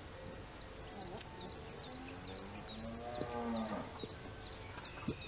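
A cow mooing once, one long call starting about two seconds in and loudest past the middle, over steady chirping of small birds in a farmyard.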